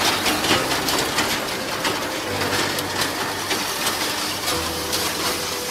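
Tractor-drawn finger-wheel hay rake working through cut hay: a steady rattling clatter with many small irregular clicks over a constant noise of machinery.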